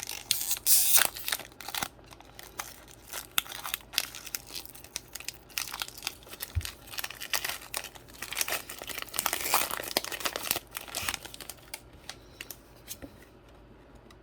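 Foil wrapper of a Pokémon card booster pack being torn open and crinkled by hand, in a run of irregular crackling rustles.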